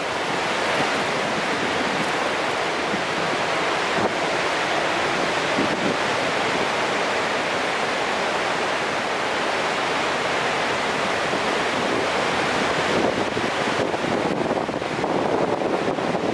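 Large waterfall, the High Falls of the Genesee River, rushing steadily, with some wind noise on the microphone.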